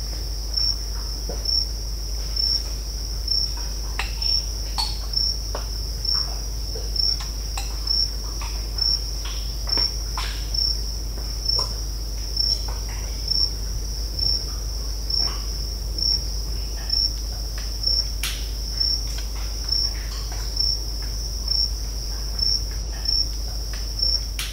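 Mangrove swamp ambience: a cricket chorus trilling steadily at a high pitch, pulsing about three times every two seconds, over irregular crackling, snapping and popping clicks from the mangrove trees.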